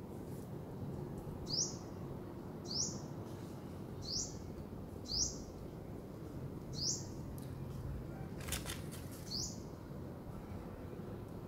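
A small bird chirping: six short, high chirps, spaced irregularly about one to two and a half seconds apart, over steady low background noise. A few faint clicks come about two-thirds of the way through.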